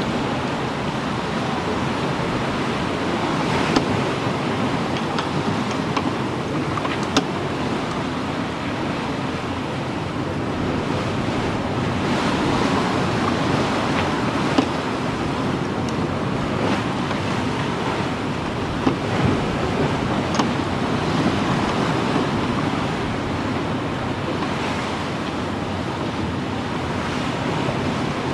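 Sea water rushing and splashing along a sailing schooner's hull, with wind, steady throughout; a few sharp clicks or knocks from the rigging or deck stand out now and then.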